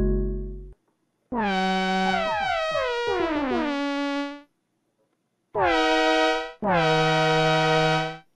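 Korg minilogue analogue polysynth playing a bright, buzzy patch. In the first phrase the notes glide downward in pitch from one to the next. After a short gap come two held notes, the second lower than the first. A previous patch's note is dying away at the very start.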